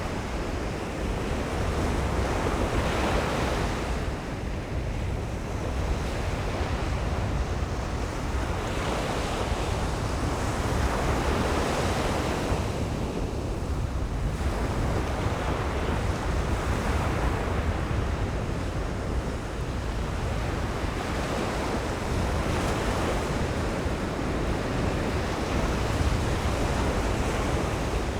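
Atlantic ocean surf: waves breaking and washing up the beach one after another, a rushing swell every few seconds over a steady low rumble.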